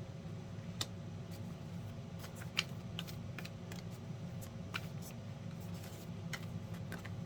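A deck of oracle cards being shuffled by hand: scattered, irregular light clicks and slaps of cards, over a steady low hum.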